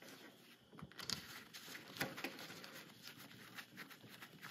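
Faint handling noises: gloved hands working stranded and solid copper wires and blue plastic wire nuts, with soft rustles and a scatter of small clicks.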